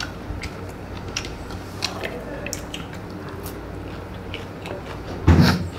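A person chewing a mouthful of chicken curry eaten by hand, with small wet clicks and smacks scattered throughout. A short louder burst comes about five and a half seconds in.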